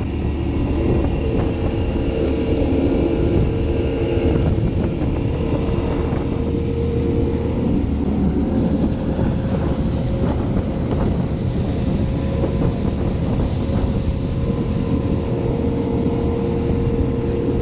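Small fishing boat's engine running steadily under way, a constant loud rumble.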